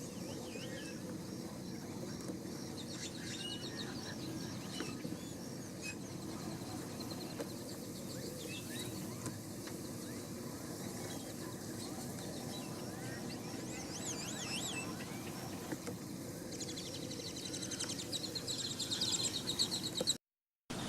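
Steady low outdoor rumble with scattered high, wavy bird calls, which grow into a denser run of trilling calls near the end. The sound cuts out abruptly for about half a second just before the end.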